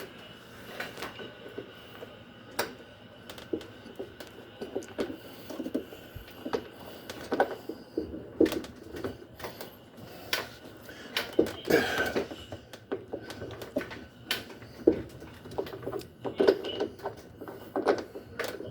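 Irregular clicks, taps and knocks of hand tools and metal parts being handled while a shock damper is fitted into a front-load washer, getting busier about halfway through.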